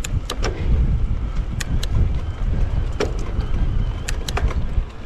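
Wind noise buffeting the microphone while riding a Mondraker electric mountain bike along a trail. A scattering of sharp clicks and knocks comes from the bike jolting over rough ground.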